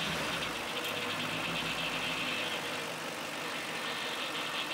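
BMW M62 4.4-litre V8 running at idle just after being started, its throttle body freshly cleaned and refitted and the vacuum hose reconnected.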